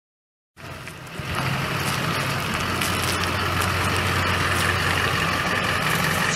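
A 6.6-litre V8 turbo diesel pickup engine running steadily with a low, even hum. It comes in about half a second in and gets louder a moment later, then holds steady.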